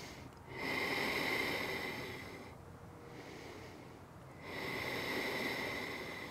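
A woman's slow, deep breathing: two long breaths of about two seconds each, with a short pause between.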